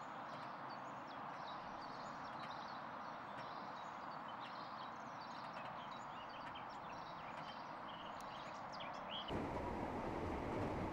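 Outdoor ambience of small birds chirping over a steady hiss. About nine seconds in, it gives way to the louder, steady rumble of a moving train.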